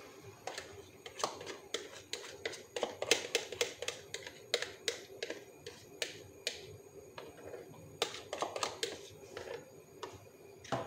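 Beaten eggs frying in a hot oiled pan: a low sizzle with many irregular sharp crackles and pops as the egg sets in the oil.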